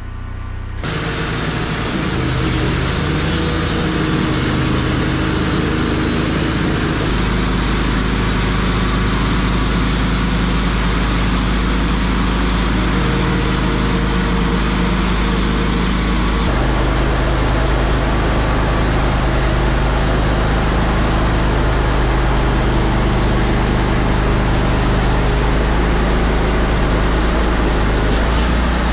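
Wood-Mizer LT15 Wide bandsaw mill running under load, its engine and band blade sawing lengthwise through an ash log. The sound comes in suddenly about a second in, then holds steady, its tone shifting twice.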